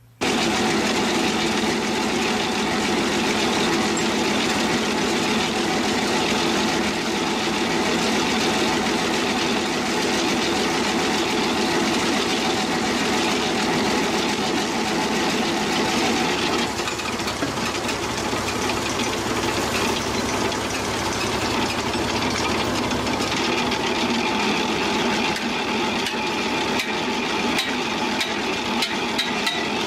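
An engine running steadily at a constant speed, with a few sharp knocks in the last few seconds.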